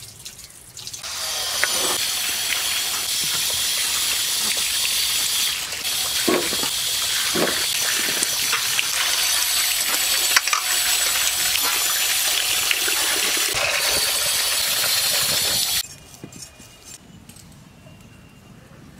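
Water running in a steady, strong stream, with a couple of knocks partway through, cut off abruptly near the end.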